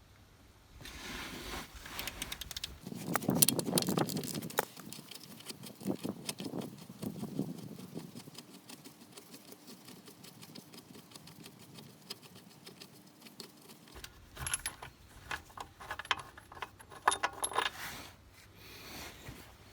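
Metal hand tools clicking and clinking on steel car parts while the 18mm bolt on the steering valve is undone: two runs of quick light metallic clicks, the first a few seconds long, the second after a quieter stretch midway.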